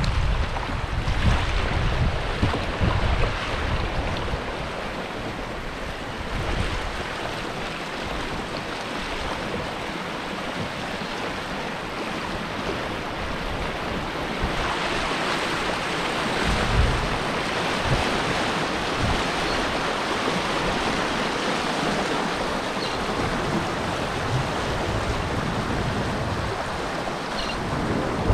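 Outdoor wind and water noise: a steady rushing hiss of water with gusts of wind rumbling on the microphone near the start and again around the middle. About halfway through, the hiss becomes denser and brighter.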